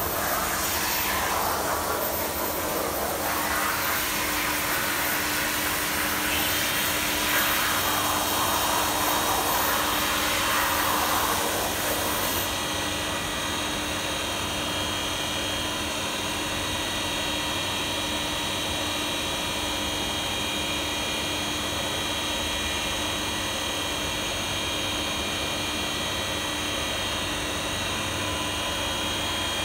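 Brother 217 CNC tapping center running under power, with a steady hum and whine from its motors and drives. In the first twelve seconds or so the pitch sweeps up and down twice as the motors speed up and slow down; after that the sound holds steady.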